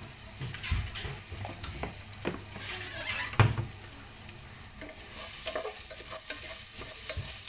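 Chopped onion, green chili and curry leaves sizzling in hot oil in a pot while being stirred with a wooden spatula, with a few sharp knocks of the spatula against the pot, the loudest about three and a half seconds in.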